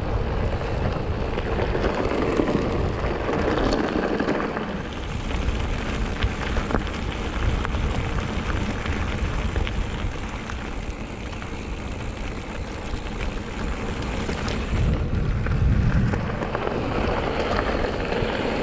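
Mountain bike tyres rolling over a gravel forest track: a steady crunching hiss with many small clicks of grit and stones.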